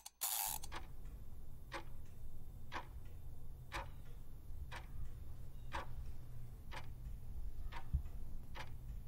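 Countdown-timer clock-tick sound effect, one tick about every second, over a steady low hum.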